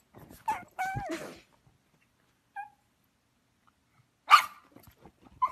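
Pug vocalising: a short wavering whine-like cry about a second in, a brief squeak, then a single sharp bark near the end.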